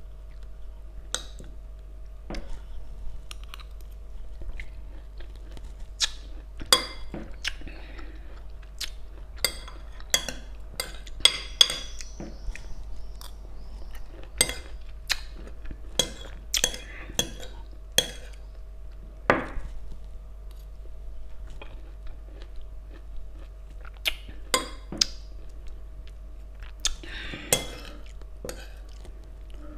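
Someone chewing pomelo, with a fork and spoon clicking and scraping on a plate at irregular intervals, over a faint steady hum.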